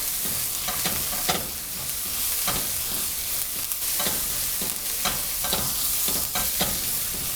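Diced onions, garlic and spices sizzling in oil and butter in a frying pan, with a utensil scraping through the pan in irregular stirring strokes.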